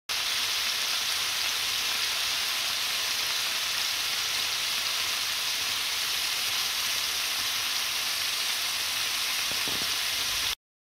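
Spice-marinated lamb chops and breast pieces frying in hot oil on a tawa, a steady sizzle that cuts off suddenly near the end.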